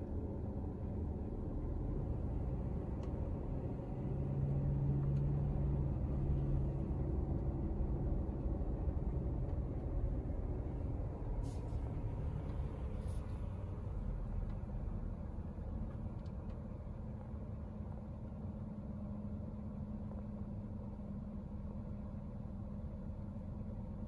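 Engine of the car running, heard from inside its cabin as a steady low rumble with a low hum; it grows louder about four seconds in, then eases back. A couple of light clicks sound around the middle.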